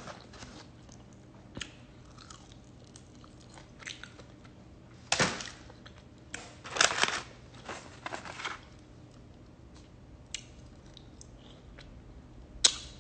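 Close-up eating of crispy lemon pepper chicken wings: chewing with crunchy bites, the loudest a little after five seconds in, a cluster around seven to eight seconds, and a sharp one near the end.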